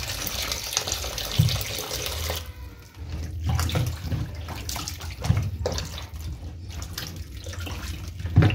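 Kitchen tap running into a bowl of chicken pieces in a stainless steel sink, shut off about two and a half seconds in. After that, hands swish and rub the raw chicken in the bowl of water, with small splashes and knocks against the bowl.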